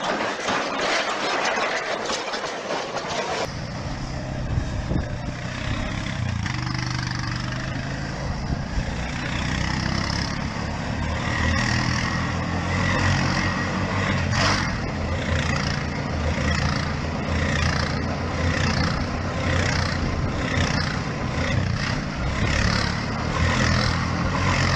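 Quad bike (ATV) engine running with a steady low note while the machine spins on ice. The first three and a half seconds hold a different, thin rushing noise that cuts off suddenly.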